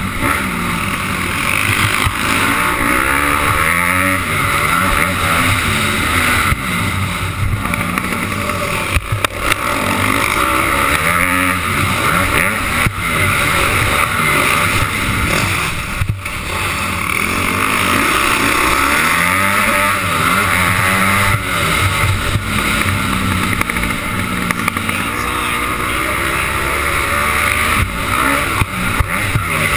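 Dirt bike engine revving up and down through the throttle as it races, heard from a camera mounted on the bike, with the pitch climbing and dropping every few seconds over a steady rush of noise.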